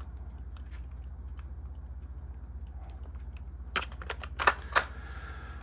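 A quick run of five or six sharp mechanical clicks about four seconds in, typical of a Sony Video 8 camcorder's buttons and cassette mechanism being worked, over a steady low hum.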